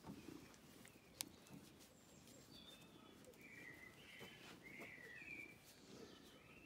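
Faint bird chirps in the background, a handful of short calls clustered in the middle, with a single sharp click about a second in.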